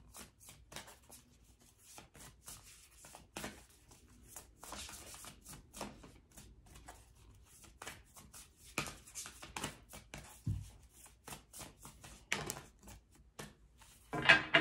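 An oracle card deck being shuffled overhand by hand: a run of soft, irregular card flicks and slides. A louder burst of card noise comes near the end.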